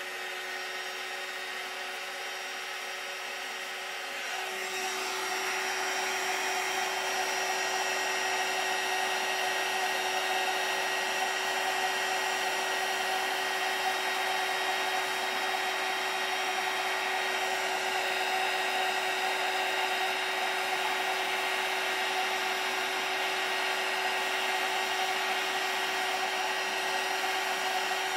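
Handheld craft heat gun running steadily, a fan blowing with a constant hum, as it heats embossing powder on a stamped sentiment to melt and raise it. It gets louder about four seconds in and stays so.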